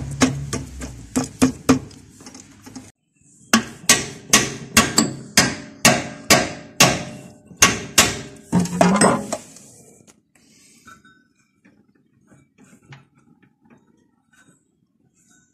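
Hammer striking steel parts on a two-wheel tractor's gearbox while it is being reassembled, in even blows about three a second. The blows pause briefly about three seconds in, then stop about ten seconds in, leaving only faint clinks.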